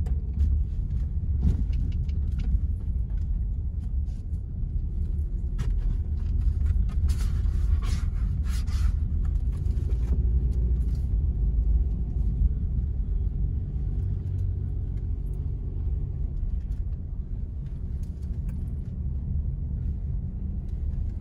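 Low, steady rumble of a car driving slowly, heard from inside the cabin, with a few brief clicks and scrapes between about six and ten seconds in.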